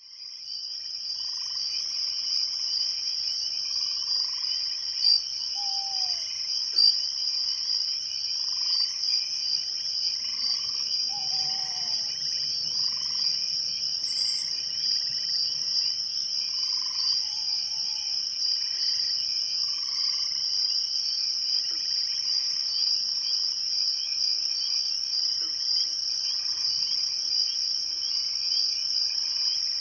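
Night chorus of crickets trilling steadily and high, with frogs calling over it in soft, repeated notes about once a second. Two brief sharp pops about five and seven seconds in.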